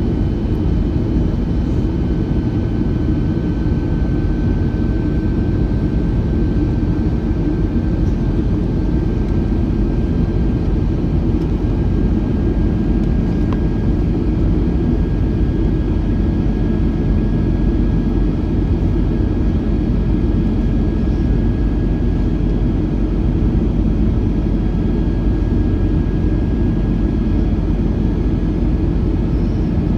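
Cabin noise inside an Airbus A321-211 with its CFM56 engines running: steady low noise with a thin, high engine whine that creeps slightly higher in pitch.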